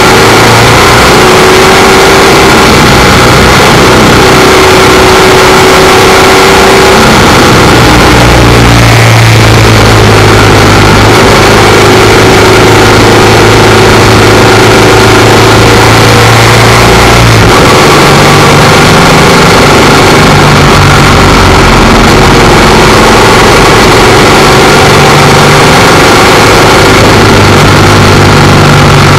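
Royal Enfield Bullet 500 single-cylinder motorcycle engine running on the road, under loud wind and road noise. The engine note shifts about nine seconds in and again some eight seconds later.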